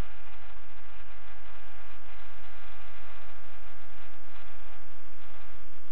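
Steady electronic hum and hiss with a row of faint steady whining tones, the self-noise of a thermal riflescope's built-in recorder; no other sound stands out.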